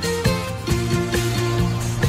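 Upbeat orchestral soundtrack music with plucked strings and a steady rhythm.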